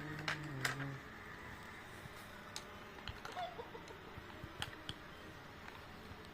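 A hen clucking low a couple of times in the first second, followed by scattered faint clicks and taps.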